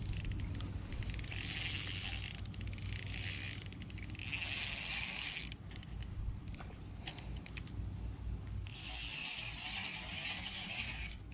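Spinning reel worked while fighting a big peacock bass: three stretches of whirring, each a second or two long, with scattered ratcheting clicks between them.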